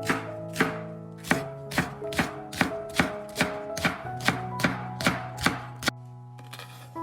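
Chopping on a cutting board, sharp strokes about two to three a second, over background music with held chords; the chopping stops about six seconds in.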